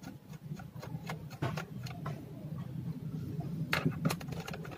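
Scattered light clicks and taps of hands handling a laptop's open plastic case, with a couple of sharper clicks near the end, over a steady low hum.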